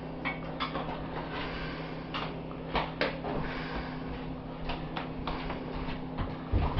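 Light taps and clicks at irregular intervals over a steady low hum, with a somewhat louder knock near the end.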